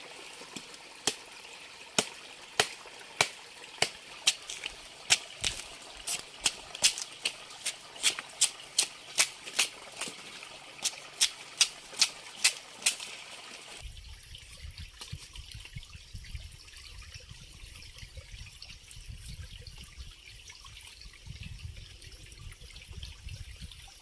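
A run of sharp knocks, irregular at first and then about two a second, that stops suddenly about fourteen seconds in. After that there is a low rumble with a faint trickling hiss.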